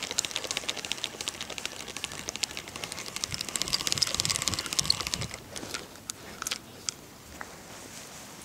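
Fishing reel being wound in, a rapid ticking that thins out after about five seconds into a few scattered clicks.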